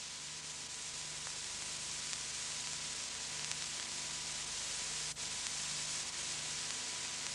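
Steady hiss of an old analogue tape transfer with a faint hum underneath; a brief dropout about five seconds in.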